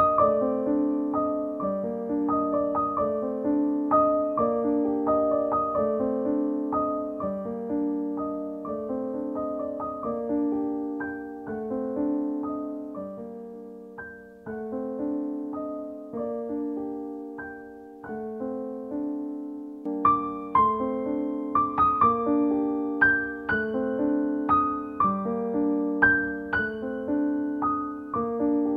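Background piano music, a steady flow of gentle notes that grows louder, with more high notes, about two-thirds of the way through.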